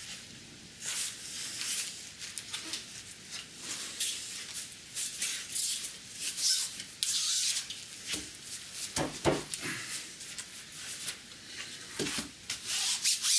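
Hands pressing and rubbing a strip of contact-glued EPDM pond rubber onto an aluminium guide rail: irregular scuffing and rustling, with a few knocks about eight to nine seconds in and another near the end.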